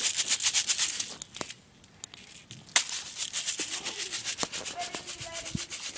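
Fast, rhythmic rustling and crackling close to the microphone, in two runs with a short quiet break between them, and a faint voice near the end.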